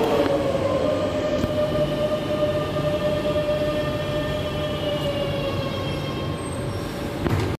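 Madrid Metro 9000-series electric train moving along the platform: a steady whine from its traction motors, settling slightly lower in pitch, over the rumble of its wheels on the rails.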